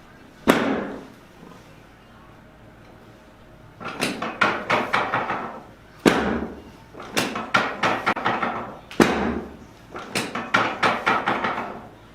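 Chiropractic adjustment thrusts on a treatment table: a single hard thud, then three or four bursts of quick knocks, each later burst opening with a sharper thud.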